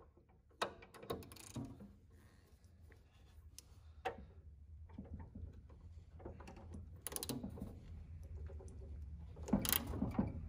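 Hand ratchet clicking as it works a hex extractor bit in a planer blade's hex screw, starting with a sharp metal click about half a second in and a few scattered clicks. From about halfway, a run of rapid ratchet clicks grows louder toward the end. The cheap screw head strips under the extractor.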